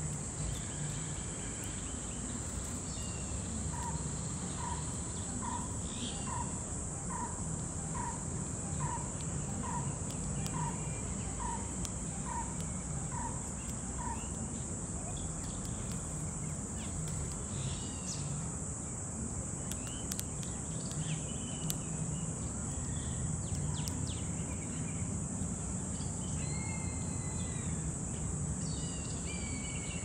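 Outdoor ambience: a steady high-pitched insect drone with birds chirping now and then. From about four seconds in, a bird repeats a single short note about once a second, a dozen or so times.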